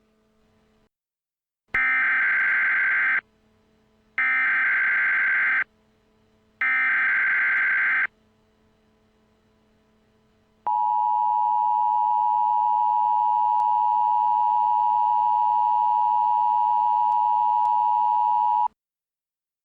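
Emergency Alert System header: three short screeching bursts of digital header data, each about a second and a half long, then the harsh two-tone attention signal held steady for about eight seconds before cutting off. Together they mark the start of an emergency alert that is about to be read.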